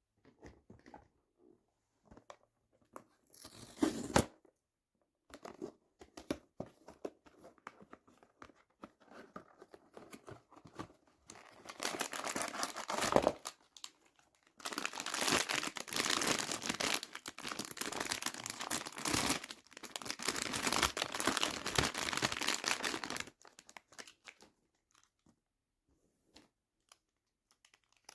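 Blind-box packaging being handled and opened: scattered small clicks and taps, a short rustle about four seconds in, then about eleven seconds of dense crinkling and tearing of the wrapping, with a brief pause partway through.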